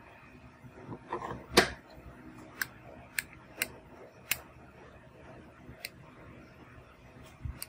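A Galaxy Note 9's S Pen stylus tapping on the phone's glass screen: a handful of sharp, light ticks at uneven intervals. Before them, about a second and a half in, there is a louder knock and rustle of the pen being handled.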